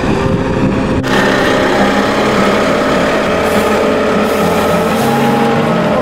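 GO Transit double-decker bus running with a steady engine hum. About a second in the sound changes abruptly to a closer, fuller engine drone beside the standing bus.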